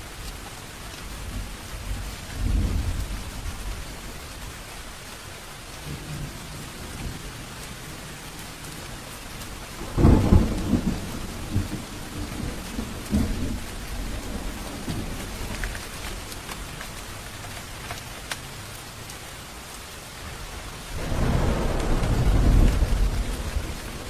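Steady rain falling through a thunderstorm, with thunder: a low rumble a couple of seconds in, a sharp crack about ten seconds in that rolls on for several seconds, and a long heavy rumble near the end.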